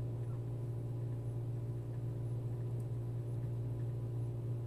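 Steady low background hum with a few fainter steady tones held above it, unchanging throughout.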